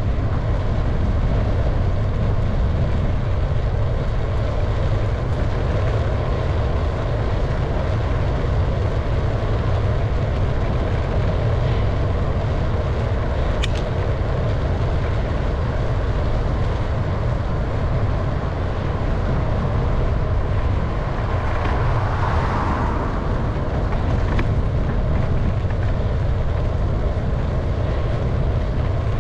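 Steady wind rumble on the microphone of a camera carried on a moving bicycle, with road and tyre noise underneath. A single sharp click comes about halfway through, and a brief louder swell comes a little past two-thirds of the way in.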